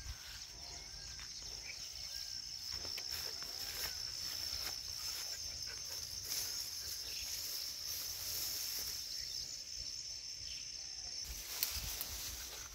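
Insects, such as crickets or cicadas, keeping up a steady high-pitched drone, with a few faint bird calls; the drone cuts off near the end.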